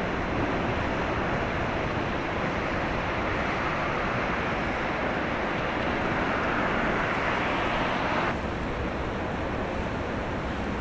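Steady rushing of water along the hull and in the wake of a large car carrier as it passes. The sound swells a little, then drops abruptly about eight seconds in.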